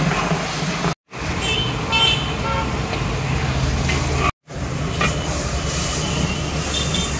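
Hot oil sizzling in a large aluminium biryani pot as mint leaves, then sliced onions and ginger-garlic paste, are stirred in, over a steady low rumble. The sound drops out for a moment twice.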